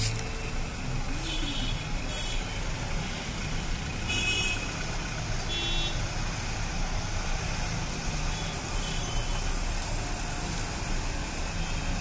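Steady rumbling background noise, like road traffic, with a few brief high-pitched tones scattered through it.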